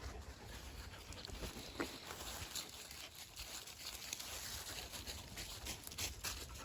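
A dog moving about: a faint patter of paws with scattered small clicks over a low rumble.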